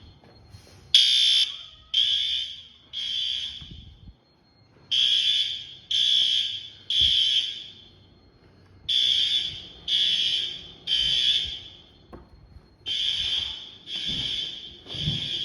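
Fire alarm horns sounding the temporal-three evacuation pattern: three harsh buzzing blasts about a second apart, then a pause, repeated four times, with the first blast the loudest. The system is being sounded for a test and inspection.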